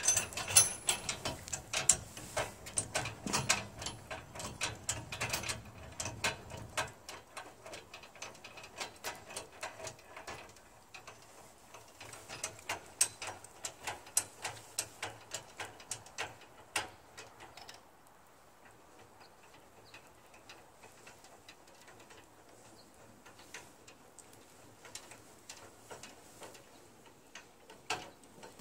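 Steel motorcycle hitch carrier being worked by hand: loud metal clanks and rattles for the first several seconds, then a long run of fainter, regular clicks as its hand crank is turned to lower the wheel cradle toward the ground.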